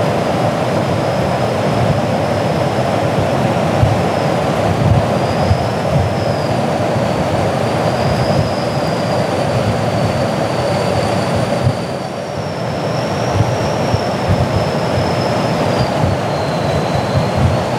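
Steady roar of aircraft engines and rushing air in flight, with a thin high whine that drifts up and down in pitch and steps up about twelve seconds in.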